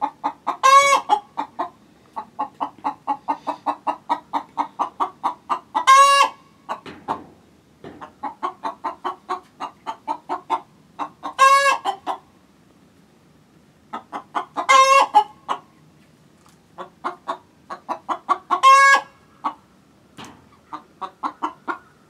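A hen cackling her egg song: runs of quick, even clucks, each building to a loud drawn-out squawk, five times over. It is the call a hen gives when she has just laid an egg.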